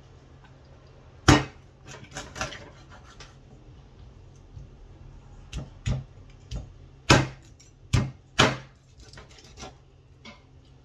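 Kitchen knife and cleaver chopping a catfish on a thick wooden chopping board: about ten sharp, irregular knocks of the blade on the wood, the loudest about a second in and again around seven seconds in.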